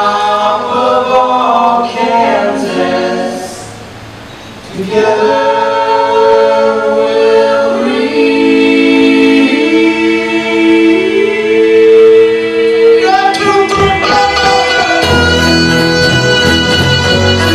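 Several voices sing an unaccompanied close harmony: a short phrase, a brief pause, then a long held chord. About thirteen seconds in, the string band comes in, with fiddle, upright bass and plucked strings.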